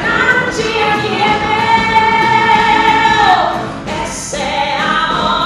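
Women singing a show tune in Portuguese into microphones over a live band. One long held note slides down and breaks off a little past the middle.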